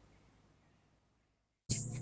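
A faint sound fades to silence, then cuts in abruptly near the end to a vehicle engine running with a steady low hum and a hiss.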